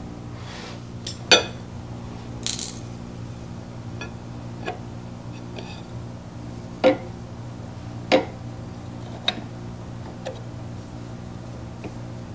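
Metal parts of a drill press's drive bracket clinking and knocking as they are handled and fitted by hand, a sharp clink about a second in being the loudest, with a short rattle after it and more knocks scattered through. A steady low hum runs underneath.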